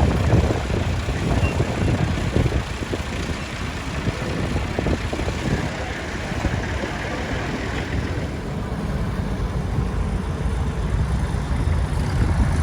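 A tractor engine running steadily, a low rumble with no changes in speed.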